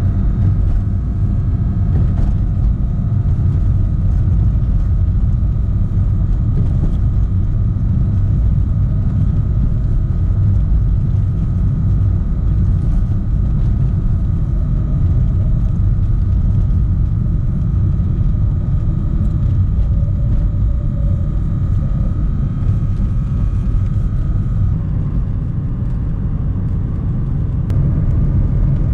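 A car being driven: a steady low rumble of engine and road noise, with a faint steady whine that stops about 25 seconds in.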